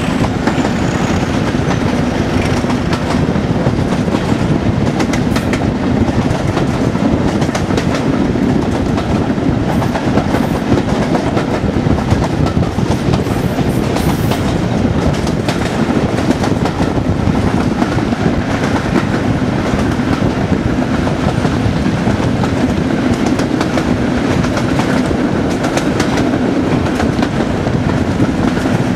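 Class 37 locomotive 37109's English Electric V12 diesel engine working hard at the head of the train, heard from the coach behind: a steady loud thrash. Wheels click irregularly over the rail joints.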